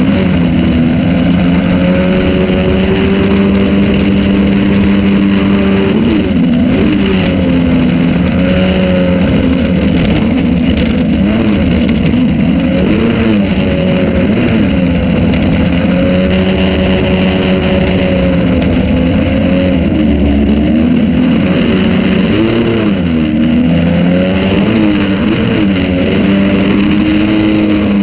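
Jet-drive outboard motor on a jon boat running under way. The engine note is steady but dips and recovers briefly a few times, over a constant rush of water.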